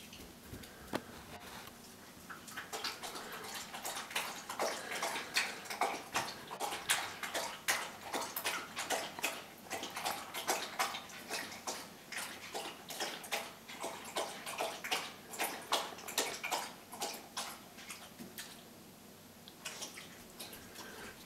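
Irregular clicking and tapping from a husky puppy playing on a tile floor, several sharp clicks a second, starting a couple of seconds in and dying away near the end.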